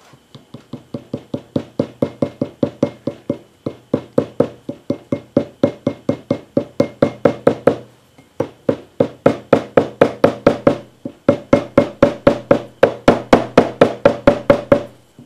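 Small hammer tapping a thick steel seal into its seat in a hydraulic floor jack's housing: rapid, even blows at about four a second, each with a short ring, pausing briefly twice.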